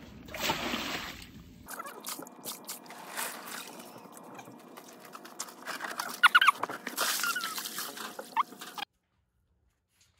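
Scratching and crunching in dirt and gravel with many small clicks, from a Shiba Inu digging after mice. Short high rising squeaks come in several times from about six seconds in, and the sound cuts off suddenly near the end.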